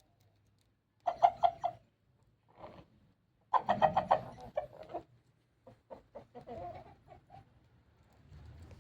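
Rooster making a strange, strained sound: groups of rapid pulsed calls, a short group about a second in, a longer one a little later, then a few scattered pulses. The owner takes the straining for a sign of constipation.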